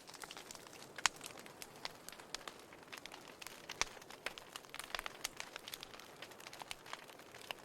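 Wood fire in a fireplace crackling: irregular sharp pops and snaps, a louder one about a second in and another near four seconds, over a soft steady hiss of the flames.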